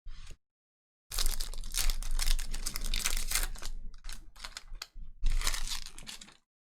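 A trading-card pack wrapper crinkling and tearing as a pack is ripped open. A short rustle comes first, then, about a second in, some five seconds of crackling with sharp snaps.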